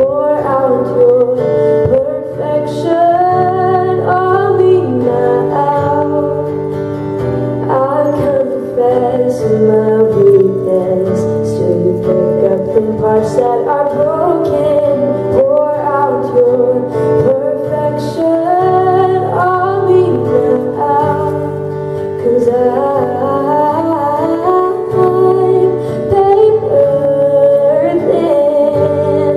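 A woman singing a slow worship song into a microphone, accompanied by an acoustic guitar, both amplified through PA speakers.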